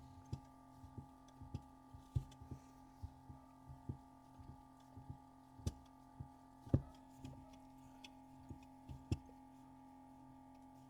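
Faint steady hum with soft, irregular low thumps, about two a second at first and sparser later, as a thin cutting wire is sawn through the glue between an iPhone 12's cracked outer glass and its display on a vacuum heat plate.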